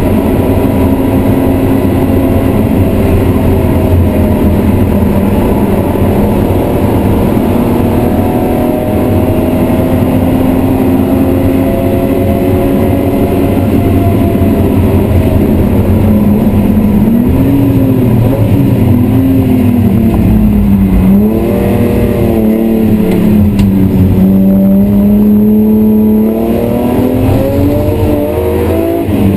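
BMW E36 M3's 3.0-litre straight-six engine under hard acceleration, heard inside the cabin, its pitch climbing slowly and steadily. About halfway through, the revs dip and climb again several times, and near the end they drop sharply as the driver shifts gear.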